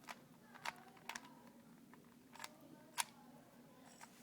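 Rubik's cube being turned by hand: about half a dozen sharp plastic clicks at uneven spacing, the loudest about three seconds in.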